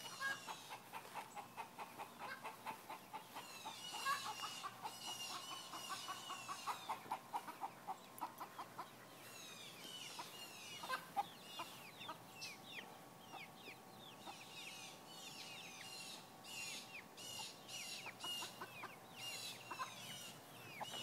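Backyard chickens clucking in quick runs of notes, with a few longer held calls, while small wild birds chirp and sing over them with many short, high, sweeping notes.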